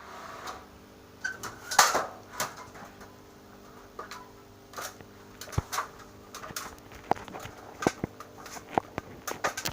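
Scattered sharp clicks and knocks at irregular intervals, the loudest about two seconds in, over a faint steady hum.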